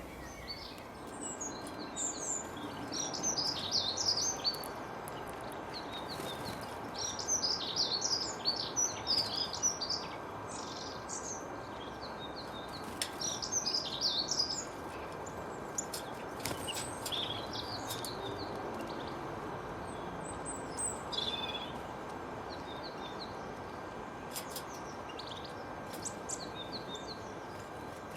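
Small songbirds chirping and singing in bursts of rapid high notes, a few seconds at a time with short gaps between, over a steady background hiss.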